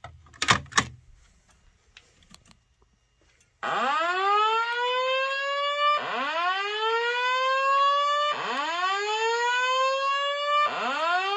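A few sharp clicks, then Simplex fire alarm speakers sounding a whoop evacuation tone: repeated rising sweeps, each about two seconds long, back to back and loud. It is the alert tone of a voice evacuation system, which precedes the spoken "Attention, an emergency has been reported" message.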